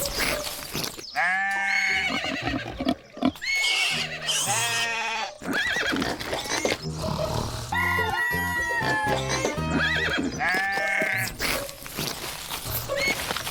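Background music with a stepping bass line and, over it, several farm-animal calls that each arch up and down in pitch, about four in all.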